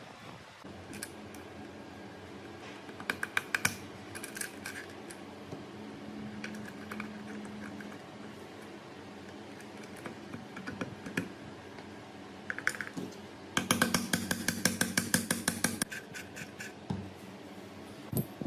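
Rapid runs of sharp metallic clicks from hand-tool work, over a low steady hum. There is a short run about three seconds in, and a louder run of about two seconds later on.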